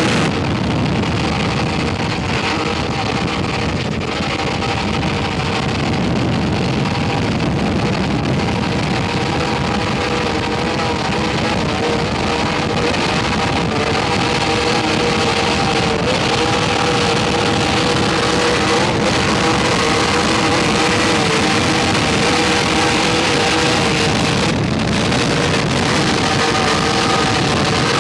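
Offshore racing powerboats' engines running flat out: a loud, steady drone with a few held pitches over spray and water noise.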